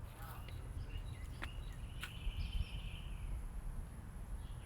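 Outdoor garden ambience: a steady low rumble with scattered short bird chirps and a longer held call in the middle, plus a couple of faint clicks.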